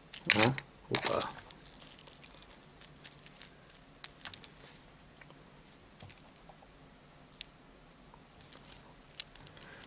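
Light metallic clinks and ticks of treble hooks and split rings on a small jointed crankbait lure as it is handled in the fingers; the ticks come scattered and irregular, mostly in the first half and again near the end.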